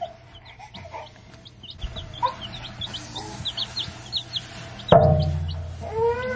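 Olive egger baby chicks peeping, many short high peeps a second. A loud thump comes about five seconds in, and a drawn-out pitched voice sound that rises and falls follows near the end.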